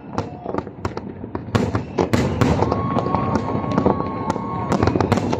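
Fireworks display: aerial shells bursting in rapid, dense bangs and crackles. A steady whistle lasts about two seconds in the middle.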